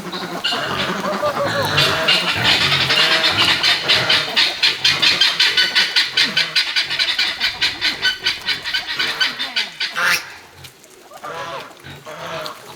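A group of ducks quacking and calling in a fast, pulsing chatter, which breaks off abruptly about ten seconds in.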